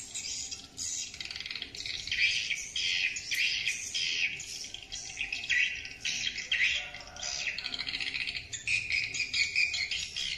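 Swiftlet lure call track played through an outdoor calling speaker: a dense, continuous high-pitched twittering of swiftlet chirps, pulsing in quick bursts, meant to draw swiftlets to a nest house.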